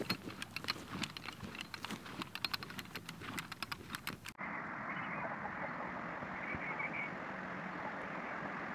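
Footsteps crunching on dry ground, a dense run of sharp crackling steps. About four seconds in, this cuts off suddenly to a steady, even rushing noise.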